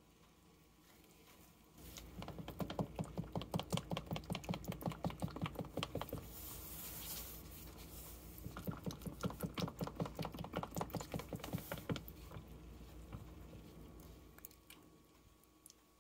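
Fast, even clicking, about six strokes a second, of a thin skewer worked back and forth through cold process soap batter in a silicone loaf mold to swirl the colours. It comes in two runs of several seconds with a short break between.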